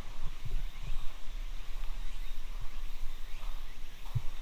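Outdoor ambience among trees: faint bird calls over a steady low rumble, broken by a few soft low thumps, the clearest just before the end.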